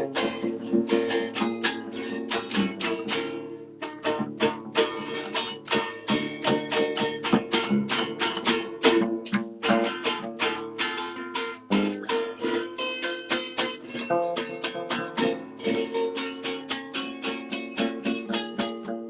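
Acoustic guitar (violão) and acoustic bass guitar playing an instrumental samba passage, a fast, steady plucked rhythm with no singing.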